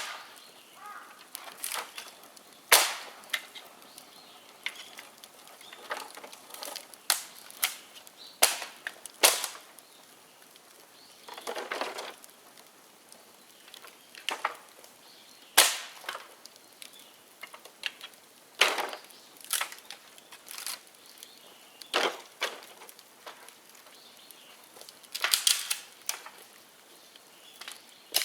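Bonfire of dead bamboo crackling, with irregular sharp pops and cracks a second or more apart and a few quick clusters of crackles.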